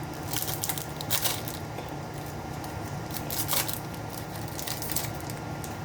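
Trading cards being flipped through and handled, making several short, sharp rustling snaps at uneven intervals. A steady low hum runs beneath them.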